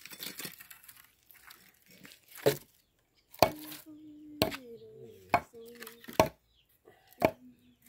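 Pieces of dry firewood knocking against each other as they are set one by one onto a bonfire stack, about six sharp knocks a second or so apart, with a faint voice in the background.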